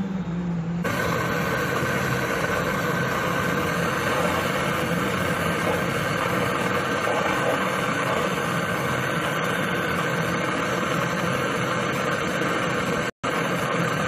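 Gas brazing torch flame burning with a steady rushing hiss on the copper refrigerant lines at the compressor. It starts abruptly about a second in and cuts out for an instant near the end.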